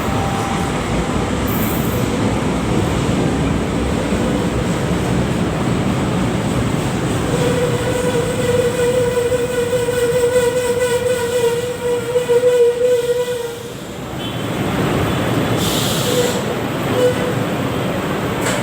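A first-generation LRT-1 light rail train running on the track with a continuous rumble. Partway through, a steady pitched tone with overtones holds for about six seconds, then stops.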